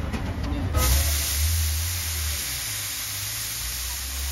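Water thrown onto a hot dosa griddle (tawa), starting about a second in with a sudden loud hiss that holds steady as it flashes into steam. This is the griddle being cooled and cleaned between dosas. A low rumble runs underneath.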